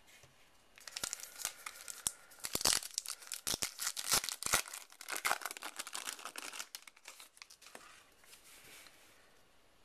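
A pack of 2012 Topps Heritage baseball cards being torn open by hand, the wrapper crinkling and crackling in a dense run of small rustles that thins out near the end.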